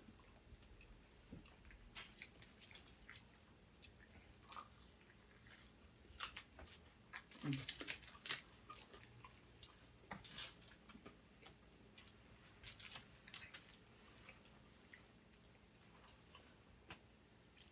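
Faint close-up eating sounds: chewing with wet mouth clicks and crisp little crackles, scattered throughout and thickest around the middle, from a steak and cheese sub and french fries being eaten.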